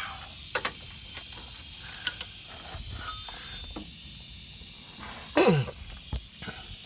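Scattered metallic clicks and knocks of tools at work as the caliper mount bracket's 17 mm bolts are torqued down, with one louder short sound falling in pitch about five and a half seconds in.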